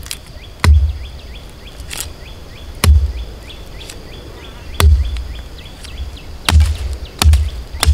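A series of about six sharp knocks, each with a heavy thud, coming at uneven intervals of one to two seconds. Faint, rapid chirping repeats in the first half.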